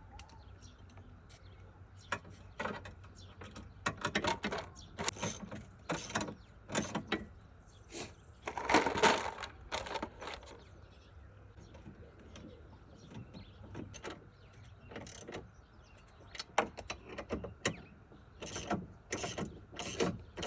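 Irregular clicks and clunks of hand tools and car parts being worked, with a denser stretch of rattling about nine seconds in.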